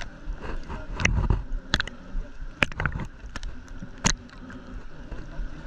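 Irregular sharp knocks and taps, several a second at times, over a steady low rumbling noise.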